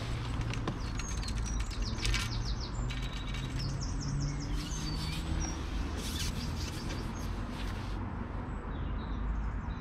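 Small songbirds chirping and singing in short, quick phrases over a steady low background rumble.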